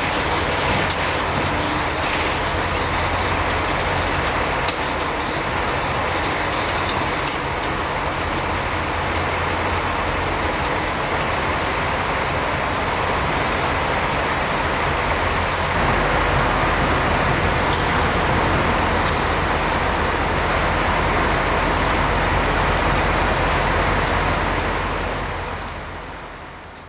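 Roller conveyor of a pipe-handling line running as an insulated pipe rolls along it: a steady, loud mechanical noise with a low hum and a few light clicks. It fades out near the end.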